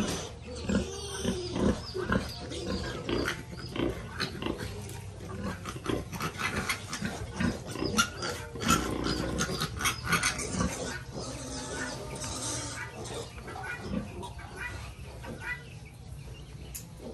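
A litter of piglets squealing and grunting while suckling from a sow, with many short, high squeals mixed with lower grunts throughout.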